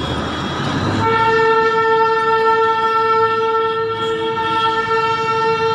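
Darjeeling toy train sounding one long, steady horn blast that starts about a second in, over the rumble of the moving train.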